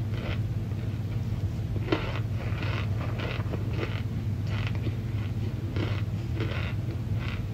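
Chewing crunchy chunks of cornstarch: a series of short crisp crunches, roughly two a second, over a steady low hum.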